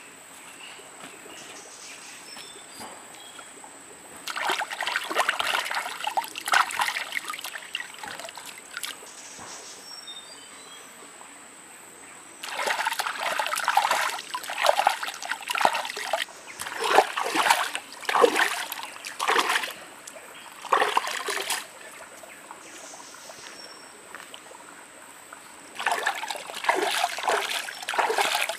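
Hands splashing and sloshing in shallow stream water, washing raw meat, in three spells of several seconds each. Between the spells the stream trickles steadily.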